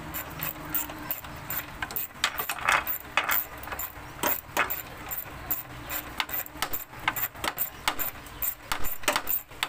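Hand ratchet clicking in quick, fairly even strokes, about three a second, as the two 8 mm bolts holding a Ford BA/BF battery box are undone.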